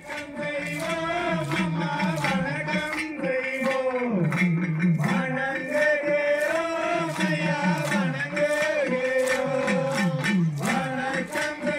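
Tamil Oyilattam folk-dance music: a male voice singing a chanted melody over a steady percussive beat.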